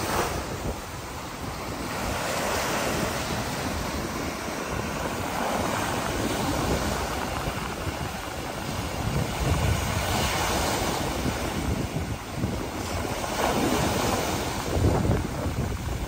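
Small surf breaking and washing up a sandy shore in repeated swells, with wind rumbling on the microphone.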